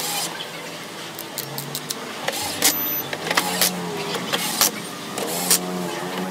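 Cordless drill-driver whirring in short runs as it drives screws into a TV's plastic back cover, with sharp clicks and taps of screws and tools in between.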